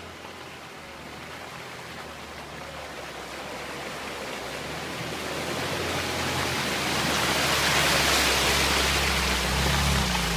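UAZ off-roader driving, its engine a low steady note under a broad rushing noise, both growing steadily louder as it picks up speed.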